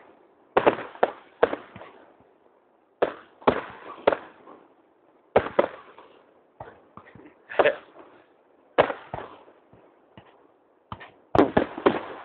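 Aerial firework shells bursting overhead: a series of sharp bangs at uneven intervals, some in quick pairs, each trailing off. Near the end a dense run of crackling reports begins.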